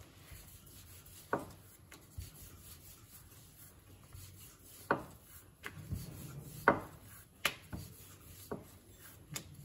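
Wooden rolling pin rolling out puri dough on a round board: a faint rubbing, with a few light knocks scattered through it.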